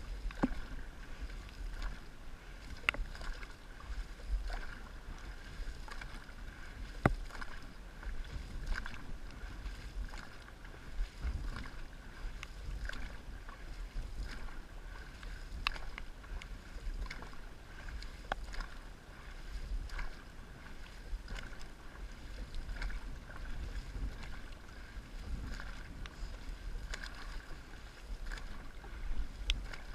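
Dragon boat on the water: a steady wash of water noise with scattered sharp knocks at no steady rhythm, over a low wind rumble on the microphone.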